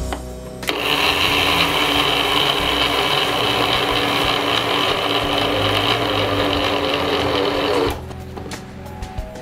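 Electric mixer-grinder motor running steadily, grinding rice with fennel seeds, ginger-garlic paste and salt in its steel jar. It starts just under a second in, runs for about seven seconds and cuts off near the end.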